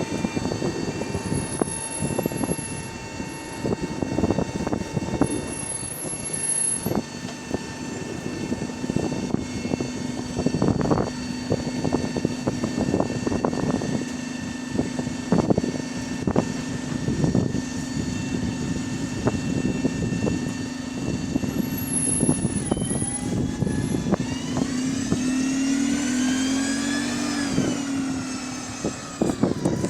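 The inside of a double-decker bus on the move: its engine and Voith automatic gearbox running, with the body and fittings rattling and knocking all the while. Near the end a whine climbs in pitch as the bus pulls away, then falls again.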